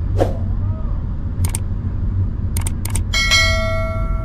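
Subscribe-button animation sound effect: a quick whoosh, several sharp mouse clicks, then a bell ding about three seconds in that rings on for over a second. Under it runs the steady low rumble of the car driving.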